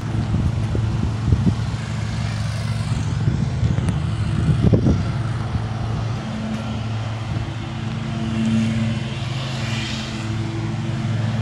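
A motor vehicle engine running with a steady low hum, and light knocks of handling near the start and about halfway through.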